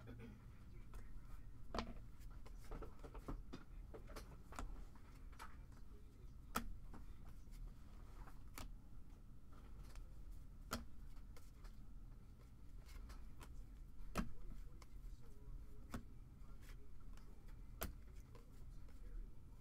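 Trading cards being flipped through one at a time from a hand-held stack, each card giving a short sharp click or snap, the loudest about every two seconds, over a low steady hum.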